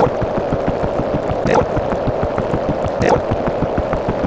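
A dense, loud wash of many overlapping looped sound effects, with a short sweeping sound repeating about every one and a half seconds over a fast crackle of clicks.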